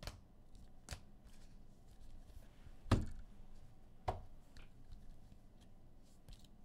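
Sports cards being handled and set down on a table: a handful of sharp taps and clicks, the loudest about three seconds in.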